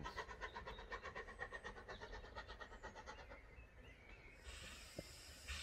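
Steam exhaust beats of the Terrier tank locomotive W11 Newport, an evenly spaced chuff of about five a second, faint and fading away as the train pulls off into the distance. About four seconds in, a steady hiss takes over.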